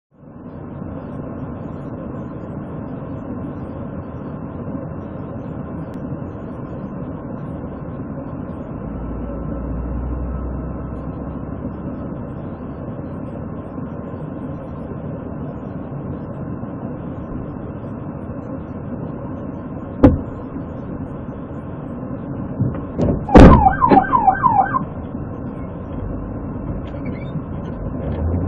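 Steady engine and cabin hum of a patrol car at a roadside stop, heard through its dash camera. A single sharp click about twenty seconds in, and a few seconds later a brief burst of quickly repeated rising-and-falling siren chirps, the loudest sound here.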